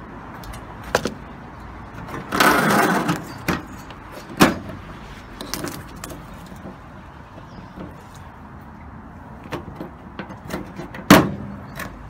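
Loose metal screws and driver bits rattling in a plastic bowl, with scattered clicks and knocks from handling: a rattle lasting under a second about two and a half seconds in, and sharp single knocks near the middle and near the end.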